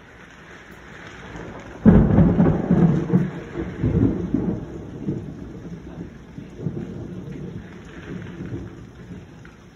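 A sudden loud clap of thunder about two seconds in, rolling on as a long rumble that fades away over the next several seconds, over steady rain.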